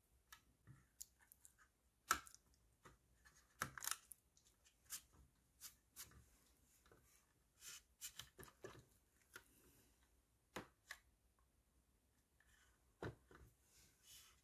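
Irregular small clicks and short scrapes of hobby tools and plastic parts being handled while building a 1/25-scale plastic model kit, with one sharper click about two seconds in.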